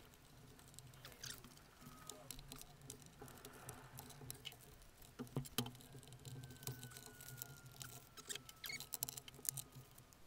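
Faint, scattered light clicks and scratching of plastic parts as hands work a Tascam Porta 02MKII cassette recorder's circuit board and tape mechanism loose from its plastic case, with a few louder clicks about halfway through.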